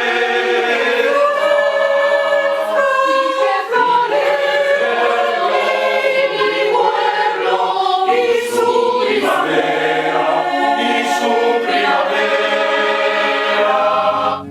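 A choir singing unaccompanied in several-part harmony, with long sustained chords that shift every second or so.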